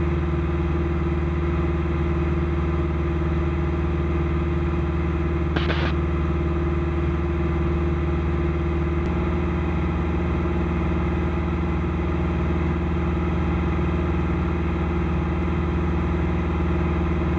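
Single-engine Cessna's piston engine and propeller running steadily in cruise, heard inside the cabin as an even drone.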